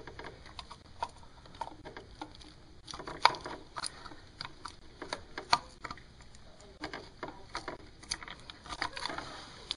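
Irregular light clicks and taps of hands handling parts around an engine's thermostat housing, with a few sharper knocks among them.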